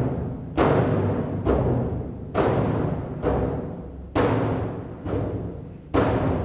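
Large concert bass drum laid flat, struck in a slow, even pulse of about seven strokes, one a little under every second. Each stroke is sudden and leaves a deep, pitched boom that dies away until the next.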